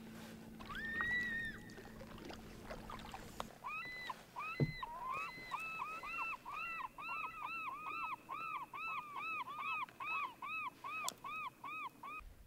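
Otters calling: a single call about a second in, then from about four seconds a long run of repeated rising-and-falling squealing calls, two or three a second, that sound like a kid screaming.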